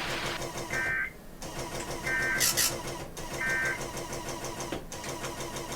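Emergency Alert System end-of-message data tones: three short bursts of two-pitch digital warble, about a second and a half apart, marking the end of the alert. They sound over the weather radio's steady background hiss.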